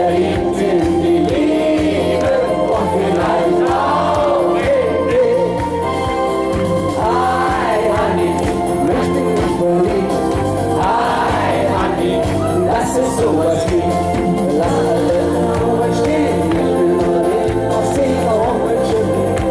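A man singing a German Schlager song live into a handheld microphone over amplified pop music with a steady beat and backing voices.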